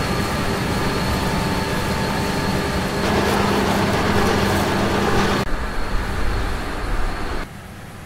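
John Deere X9 1100 combine harvester running in the field: a steady, loud mix of engine and threshing-machinery noise with a faint whine. The sound changes abruptly about five and a half seconds in, then drops much quieter near the end.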